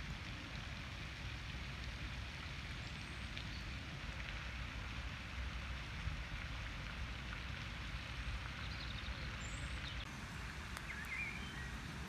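Steady outdoor background noise: a low rumble under an even hiss, with a few faint bird chirps about two-thirds of the way in and again near the end.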